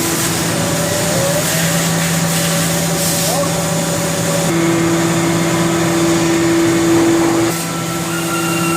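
Haas VF-4SS vertical machining center running, a steady machine hum of several held tones over a hiss. The tones shift about four and a half seconds in and again a second before the end.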